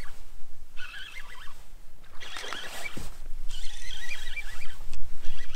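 Fishing reel cranked hard in three quick bursts, a zipper-like whirring buzz, as a hooked bass is reeled in on a bent rod. A dull thump comes about three seconds in.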